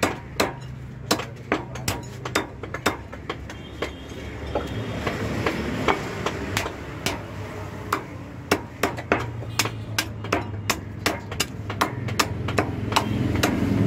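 Butcher's cleaver chopping mutton on a wooden block: sharp, uneven chops about two a second.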